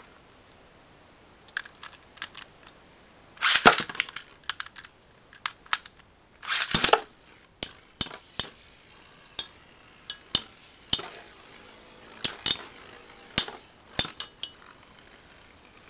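Beyblade Metal Masters spinning tops, Blitz Unicorno 100RSF and Phantom Orion B:D, clashing in a plastic stadium: sharp metal-on-metal clacks. A dense burst of rattling clatter comes about three and a half seconds in and another near seven seconds, then single clacks about once a second.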